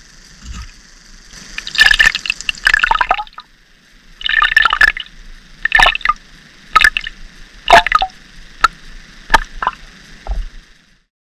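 Underwater recording of handfuls of bait pellets and sweetcorn landing on the surface above. It is heard as about ten sharp crackling splash bursts over a steady high hiss of the water.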